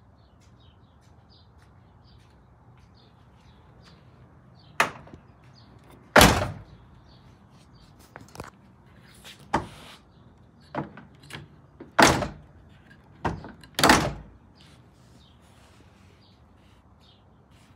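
Honda CRX door being opened and shut: a run of sharp clunks and clicks, with three loud shuts about six, twelve and fourteen seconds in.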